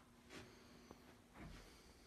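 Near silence: room tone with a faint steady hum and a few soft knocks, the last with a low thud.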